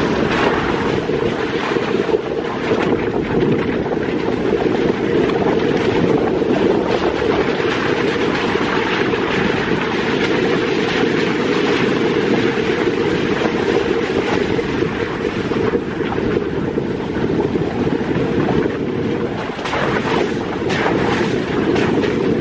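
A car driving over a rough, wet dirt road: a steady rumble of tyres and engine, with scattered knocks and rattles from the bumpy surface.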